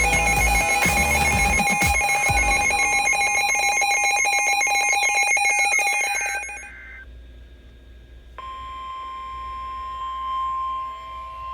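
NOAA Weather Radio weekly test signal from a weather radio. For about six and a half seconds there is a jumble of several steady tones with rapid data-burst chatter, typical of the coded alert header. After a brief drop, the single steady warning alarm tone starts about eight seconds in and holds.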